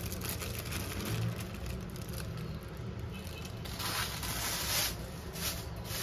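Thin plastic bag crinkling and rustling as dry fried anchovies are shaken out of it into a wooden mortar, in several bursts, loudest about four seconds in.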